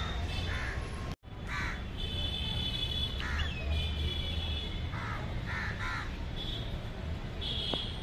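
House crows cawing: about half a dozen short caws spread through, over a steady low background rumble. The sound drops out for an instant just over a second in.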